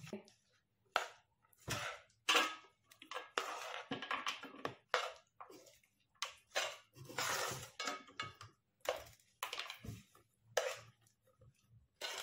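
A spoon scraping and knocking against a metal pan and a steel platter as sticky, syrup-soaked boondi is stirred and spooned out, in irregular strokes.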